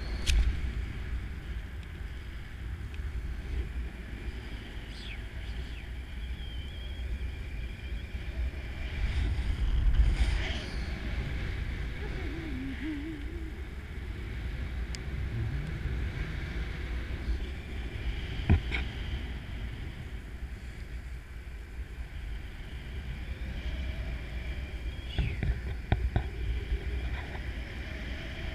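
Steady wind rushing over the camera microphone during a parachute descent: a low rumble with a few small knocks and rustles.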